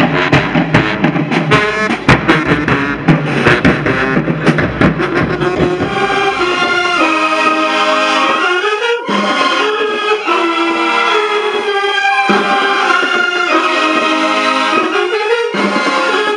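High school marching band playing, drums and brass together at first; about six seconds in the drums drop out and the brass section holds sustained chords, twice swelling up through a rising slide.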